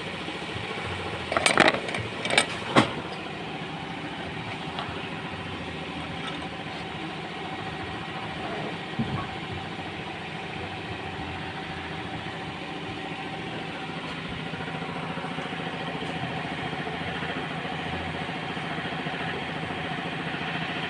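A steady mechanical hum like an engine running, with a few sharp knocks about one and a half to three seconds in.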